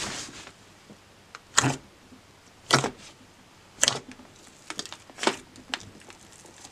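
Fingers pressing and poking into thick white slime, trapped air popping out in four sharp squelching pops about a second apart, with small clicks and crackles between.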